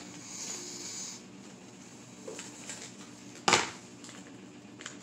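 Zip-top plastic bag rustling and crinkling as it is handled, with a few small ticks and one sharp click about three and a half seconds in.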